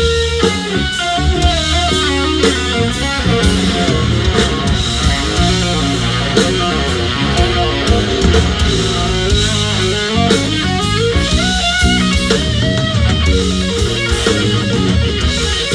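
Live blues-rock band playing an instrumental passage: a bending electric guitar lead over bass and a drum kit.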